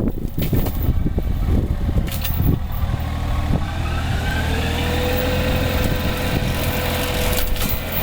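Excavator engine running with a hydraulic mulcher attachment working brush: irregular crackling and knocking of material being shredded, then a smoother stretch where a whine rises in pitch and holds as the rotor spins free, with the shredding coming back near the end.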